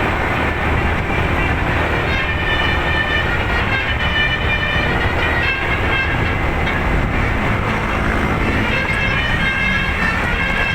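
A bus's telolet basuri musical air horn tooting a continuous run of changing notes, like a melody, over a steady low rumble.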